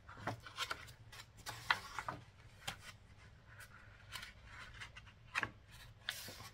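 Sketchbook pages rustling and rubbing as a page is turned and smoothed flat by hand: short, scattered paper scrapes and soft taps.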